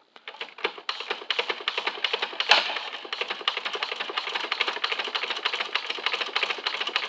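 Hand-worked plastic mechanism of a Driven Standard Series toy fire truck clicking rapidly and steadily, with one louder knock about two and a half seconds in.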